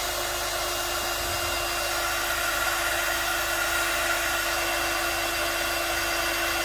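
Handheld hot-air dryer running steadily, a constant hum inside a rushing stream of air, blowing over wet airbrushed paint to dry it.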